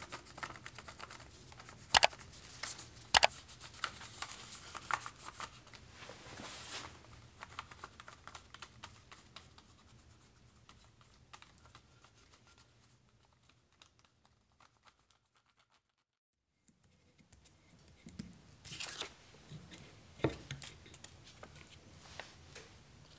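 Pencil scratching on paper laid over a porous stone, with paper rustling and two sharp taps about two and three seconds in. After a near-silent pause around the middle, paper crinkles again as a paper template is handled over a wooden block.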